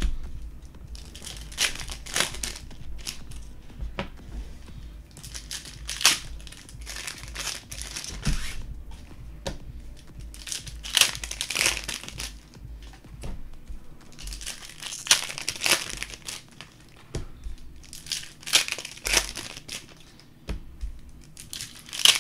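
Optic basketball card packs being torn open, their wrappers crinkling and crumpling in repeated bursts every few seconds.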